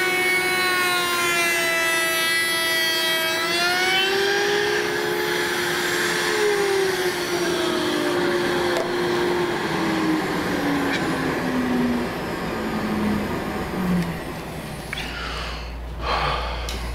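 A table-mounted router's motor runs at high speed while a rabbet is cut in a half-inch board. About seven seconds in it is switched off, and its whine falls steadily in pitch for several seconds as it spins down. A few knocks and clatters follow near the end.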